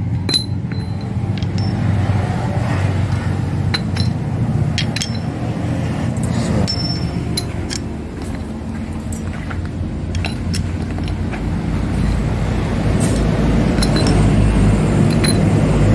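Scattered metallic clinks and clicks, some briefly ringing, as steel clutch pressure-plate springs and parts are handled and set into their seats on a cast-iron pressure plate, over a steady low mechanical hum.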